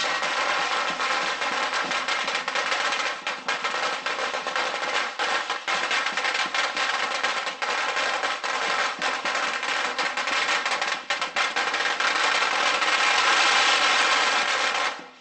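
A long string of firecrackers going off in a dense, continuous crackle of rapid bangs, cutting off abruptly at the end.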